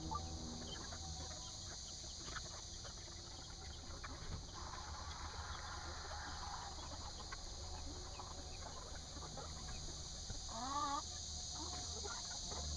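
A flock of chickens feeding at a trough, faint clucking and small pecking clicks over a steady high hiss, with one louder wavering call from a bird near the end.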